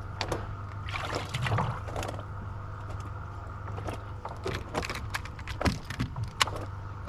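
Live bass splashing and slapping around in water, with irregular sharp knocks and splashes, the two loudest near the end, over a steady low hum.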